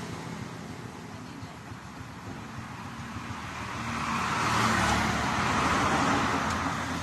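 Road traffic: a steady hum of passing vehicles, with one motor vehicle approaching and going by, loudest about five seconds in.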